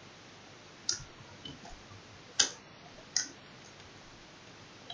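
Computer keyboard keys pressed one at a time: a few separate, sharp clicks spaced irregularly, with quiet between them.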